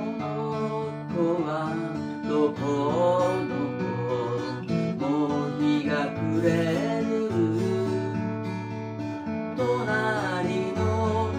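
Acoustic guitar strumming chords under a wavering lead melody line: an instrumental passage of a Japanese pop ballad, with no sung words.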